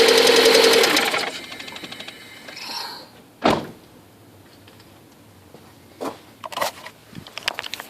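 Lada Priora engine running, then shut off about a second in and dying away. A single loud thud follows a couple of seconds later, then a few light clicks and knocks near the end.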